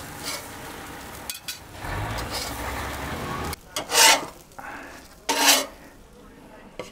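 Metal spatula scraping across a hot gas-grill grate, twice loudly and briefly about four and five and a half seconds in, over a steady sizzle of food cooking on the grill.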